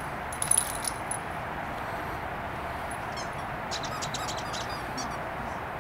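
Two dogs tussling over a stuffed toy make scattered short, high clicks and jingles over a steady background hiss. There is a cluster of them about half a second in and more between three and five seconds in.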